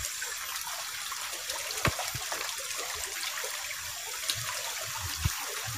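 Shallow forest stream trickling steadily, with a few brief faint knocks.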